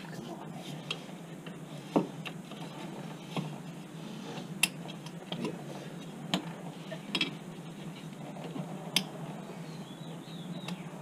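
Metal-on-metal clicks and taps from a flathead screwdriver working a C-clip onto a metal intake pipe in a car's engine bay: about eight sharp clicks at irregular intervals, over a steady low hum.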